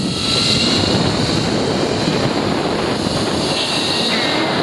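Zip-line trolley running fast along a steel cable, a steady whirring of pulleys mixed with wind rushing over the microphone.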